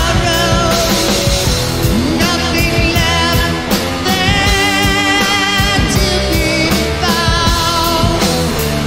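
Rock song from a band with drums, bass and electric guitars: a steady beat under a lead part that wavers in pitch.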